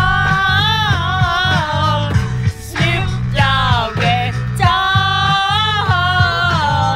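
Music: a singing voice holding long, wavering notes over a steady bass beat.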